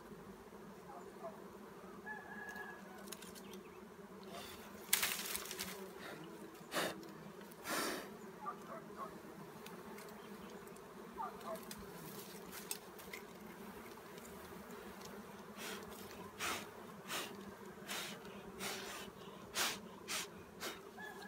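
A disturbed swarm of wild honeybees buzzing steadily around their cut comb. Scattered sharp clicks and knocks sound over the buzzing, the loudest about five and eight seconds in.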